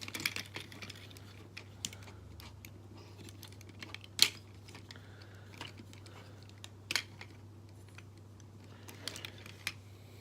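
Hard plastic clicks and snaps of a Transformers Combiner Wars figure being handled and its limb pegged into place, a few sharp separate clicks with the loudest about four seconds in. A low steady hum runs underneath.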